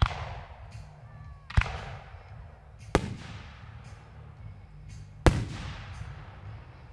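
Aerial fireworks going off: four sharp booms, one to two seconds apart, each trailing off in a long echo. The first and last booms are the loudest.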